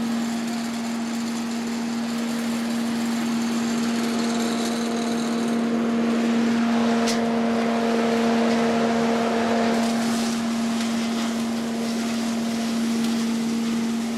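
Engine-driven leaf vacuum running steadily at constant speed, a steady hum over a rush of air, sucking up leaves.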